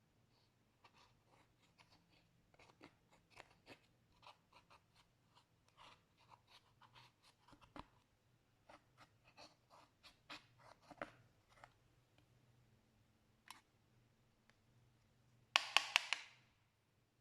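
Slime being worked by hand, giving many small sticky clicks and crackles. Near the end comes a short, louder burst of crackling pops.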